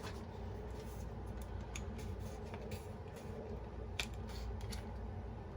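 Scattered small clicks and scratches of objects being handled, the sharpest about four seconds in, over a steady low hum.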